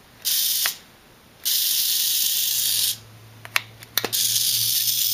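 The small electric motors of a hacked Doodle Track Car toy robot whirring in spurts, starting and stopping abruptly as its light sensors switch them on and off. A couple of sharp clicks come past the middle, and a low hum sets in partway through.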